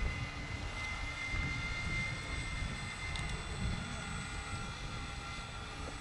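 Ben Buckle Mini Super RC model plane flying overhead, its motor running steadily with a high tone over a low wind rumble on the microphone. The motor is a little noisy, which the flyer puts down to worn bearings that need replacing.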